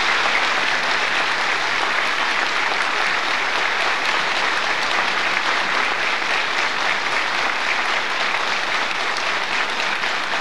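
Large seated audience applauding, a long, steady round of clapping from many hands.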